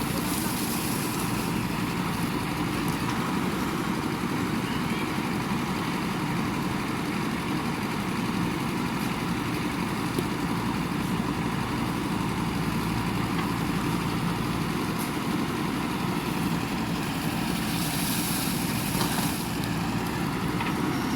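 JCB 3DX backhoe loader's diesel engine running steadily at a constant speed.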